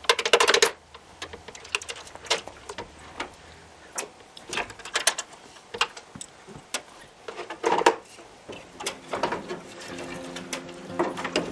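Hands and tools working on an aluminium cockpit panel: scattered sharp clicks and metal knocks as it is unfastened and handled, with a quick run of rapid clicks right at the start.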